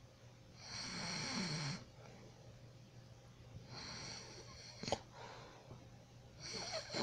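A person snoring in sleep: three snoring breaths about three seconds apart. The first is the loudest, with a low flutter, and a sharp click ends the second.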